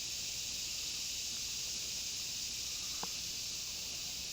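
Steady insect chorus, an even high-pitched hiss, with one short click about three seconds in.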